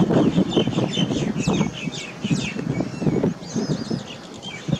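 Small birds chirping and twittering again and again, with quick falling notes, over a loud, choppy low rumble.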